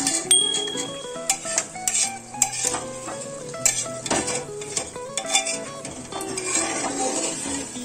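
Metal ladle scraping and knocking against the sides of an aluminium pressure cooker as mutton pieces are stirred through fried masala, with irregular clinks and a light sizzle underneath.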